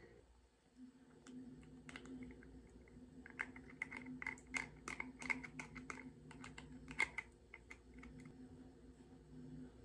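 A wooden spoon clicking and scraping against a small plastic jam cup as jam is scooped out: a run of quick, light taps, thickest in the middle and loudest near the end of that run, over a faint steady hum.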